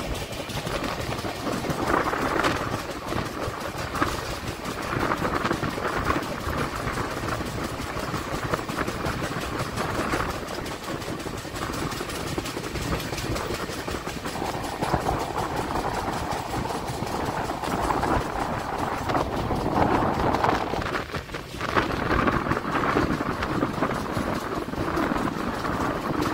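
Wheels of an Indian Railways LHB coach running on the track: a continuous rumble of wheels on rail that swells and eases, with a brief dip about three-quarters of the way through.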